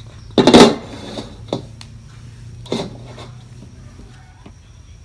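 An empty metal wok being handled and clattering: one loud clank about half a second in, then two lighter knocks.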